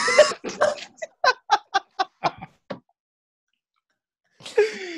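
Men laughing hard, breaking into a run of short "ha" pulses, about four a second, that dies away after about three seconds. A gap of dead silence follows, then laughter and voices start again near the end.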